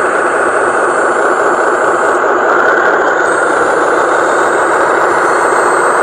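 Steady truck-engine running sound from a radio-controlled model dump truck as it drives across the ground.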